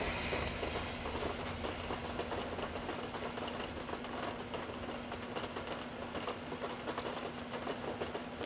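Steady rain falling and pattering, a dense hiss of many small drop ticks, with a faint steady low hum underneath.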